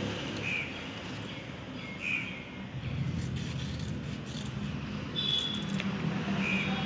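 Scissors cutting through sheets of colour paper, quiet snips, while a bird gives a few short chirps in the background.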